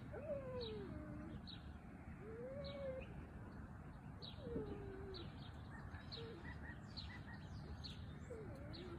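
Birds calling: short high chirps repeated about twice a second, with several slow, low cooing calls that rise and fall, over a low background rumble.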